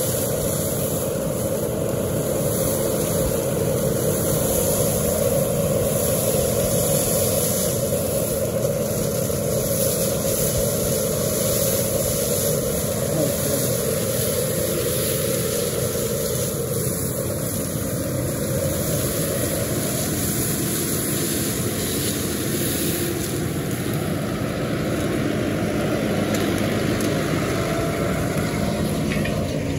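Kubota tractor engine running steadily while the rotary brushes of a vineyard berm sweeper spin and sweep soil from under the vine rows.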